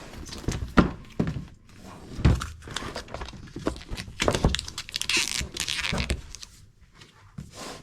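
A cardboard box and its packaging being handled: a string of knocks and thumps, with a burst of rustling about five seconds in.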